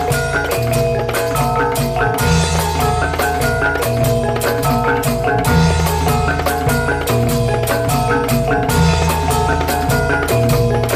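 Dance accompaniment music for a traditional Lampung dance: a short, repeating melody played on struck, tuned percussion over a loud, shifting bass line, with frequent percussive strikes.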